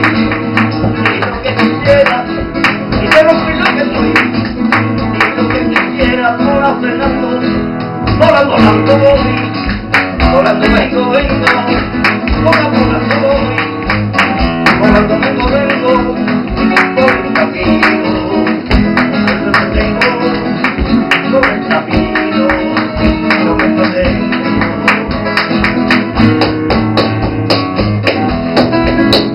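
Flamenco guitar playing, strummed and plucked, with palmas (flamenco hand-clapping) keeping time alongside it.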